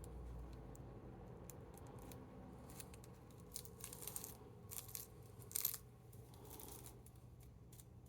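Faint handling noises from hand-rolling a joint: light rustles of rolling paper and small clicks, with a few louder rustles a little past the middle.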